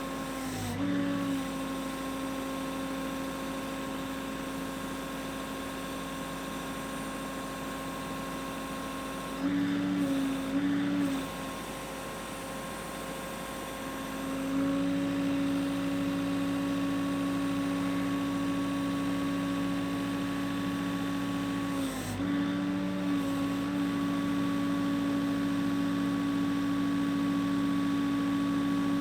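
MGI Tonker 830 piling rig's engine and hydraulics running with a steady hum, the note sagging briefly about a second in, twice around ten seconds in and again near 22 seconds, and growing louder about fifteen seconds in.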